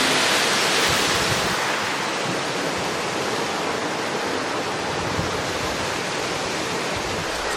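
Waterfall rushing: a steady, even roar of falling water, a little louder in the first second or two.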